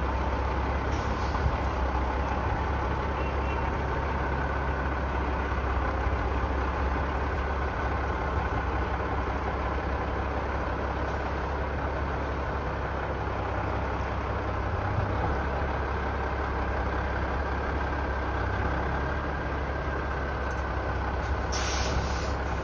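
Diesel engine of a semi tractor-trailer running at low revs as the rig slowly backs toward a loading dock, a steady low rumble. A short hiss near the end.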